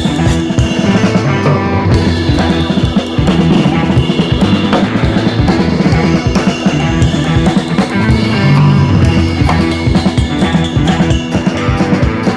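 Background music with a steady drum-kit beat and heavy bass.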